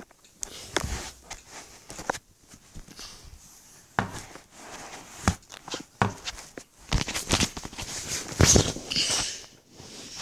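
Handling noise from a hand-held camera: irregular knocks, rubbing and rustling as it is moved about, loudest about eight and a half seconds in.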